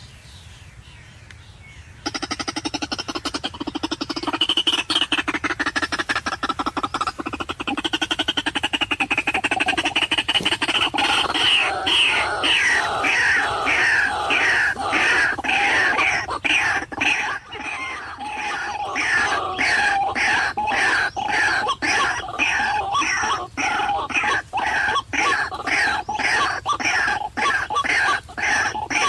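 White-breasted waterhen (ruak-ruak) calling: a loud, long run of repeated harsh notes that starts abruptly about two seconds in and settles into an even rhythm of about two to three notes a second.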